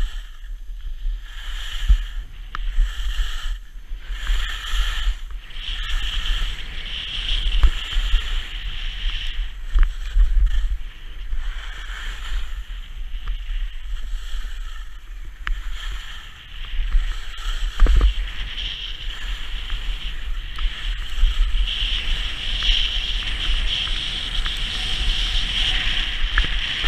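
Edges carving over packed piste snow with a steady hiss and scrape, pulsing with each turn in the first few seconds and then running on steadily. Wind rumbles on the camera microphone throughout. A sharp knock comes about eighteen seconds in.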